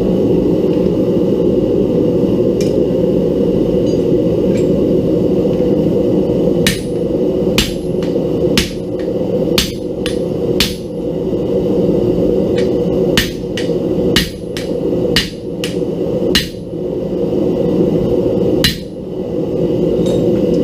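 Hammer blows on a steel disc being shaped on a makeshift form, about a dozen sharp metallic strikes roughly once a second in groups with short pauses, each with a brief high ring. Under them a gas forge burner runs with a steady roar.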